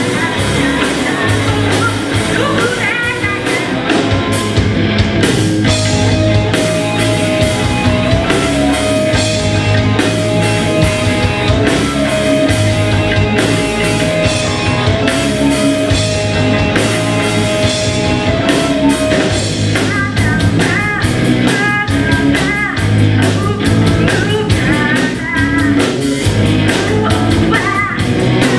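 Live rock band of electric guitar, bass and drum kit playing with a singer. About six seconds in, a single note is held for some fourteen seconds over the band, then the singing resumes.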